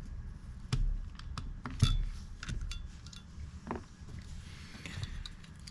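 Small metal parts of a pocket knife clicking and clinking together as they are handled and fitted back into place, a handful of separate sharp clicks with the loudest about two seconds in.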